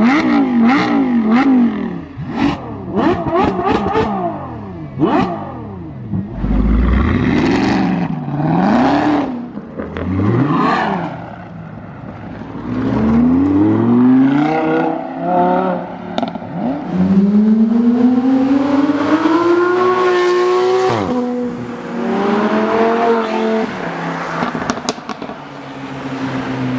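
High-performance car engines revving and accelerating at full throttle. There are quick rev blips at the start, a run of sharp exhaust cracks a few seconds in, and several long pulls rising in pitch. The longest pull comes late and ends with a sudden drop as the throttle is lifted.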